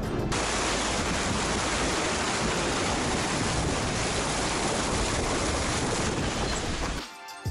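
Muddy river water rushing and splashing against the side of a car as it fords a fast-flowing river, heard close to the water: a steady rush with no pitch.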